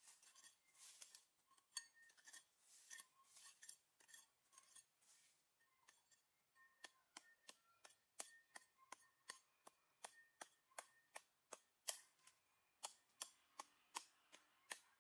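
A small hatchet digging into loose forest soil. For the first few seconds it scrapes softly through the dirt. From about six seconds in it gives a run of quick, sharp strikes, two or three a second.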